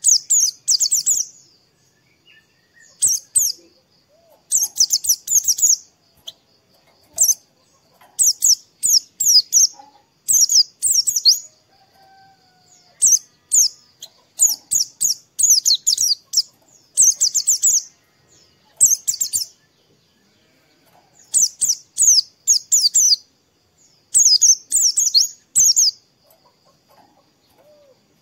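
White-eye (pleci) singing: about a dozen short phrases of rapid, very high twittering chirps, each a second or so long, with brief pauses between them.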